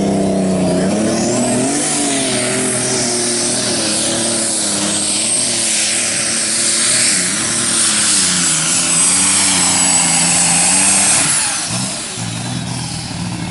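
Modified New Holland pulling tractor's engine going from a low steady note to full throttle about a second in and running hard under load as it drags the weight-transfer sled, with a high whistle held above it. Near the end the whistle fades and the engine drops back to idle as the run ends.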